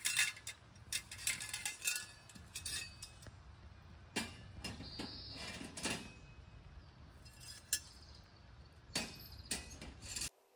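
Metal cookware and utensils clinking and knocking: irregular sharp clinks in small clusters, some with a short ring.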